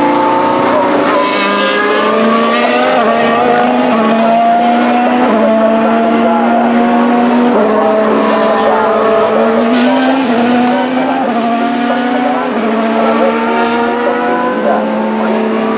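2025 Formula 1 cars' 1.6-litre turbocharged V6 hybrid engines running at speed on track. The engine note climbs and then steps to a new pitch several times as the gears change.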